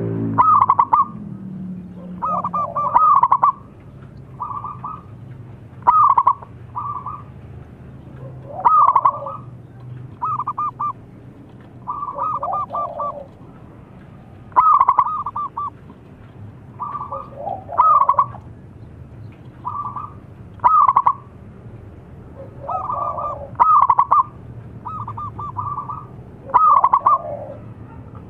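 Zebra dove (perkutut) singing its staccato rolling coo: a quick run of clipped notes about a second long, repeated every two to three seconds.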